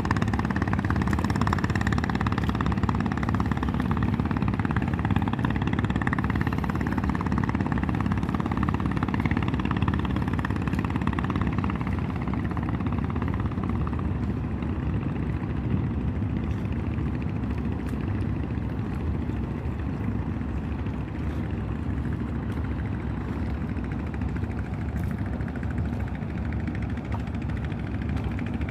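Boat engine running steadily with a low drone, easing off a little past the halfway point.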